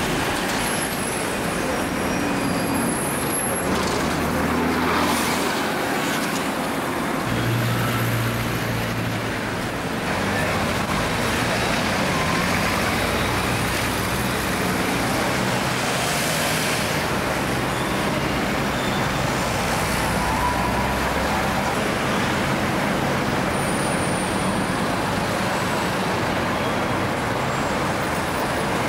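Busy city street traffic: Routemaster double-deck buses, a van and cars running and passing, with a steady rush of tyres and engines and a low diesel engine hum that swells and fades as buses idle and pull past.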